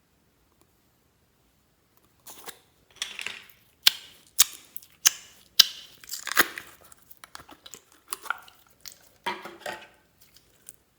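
Store-bought slime being mixed and squished, giving an irregular run of sharp pops and short sticky squelches that start about two seconds in and die away near the end.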